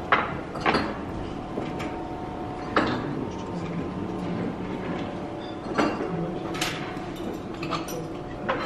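Background chatter with several short, sharp clinks of crockery and cutlery scattered through it.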